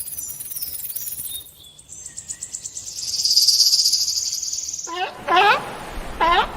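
A high, rapid chirping trill like an insect's, then twice near the end a short, pitched animal call that sweeps in pitch.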